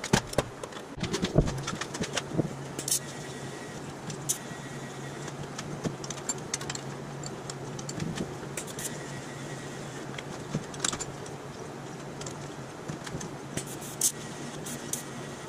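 Light metal clinks and taps from stainless steel parts and clamps being handled, thickest in the first few seconds, over a steady low hum.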